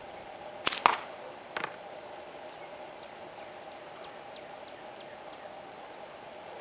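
A slingshot shot, most likely the Red Scorpion: a sharp crack as the bands are released, a second crack a fraction of a second later, then a fainter knock about a second and a half in. A steady hum sits underneath throughout.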